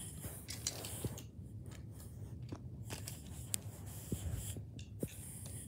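Faint rustling with scattered light clicks and taps: handling noise from a camera being carried and moved about.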